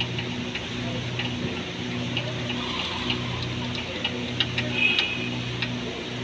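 Scattered light clicks and taps of hands and tools working around the engine's belt pulleys, over a steady low hum that swells and fades every second or so.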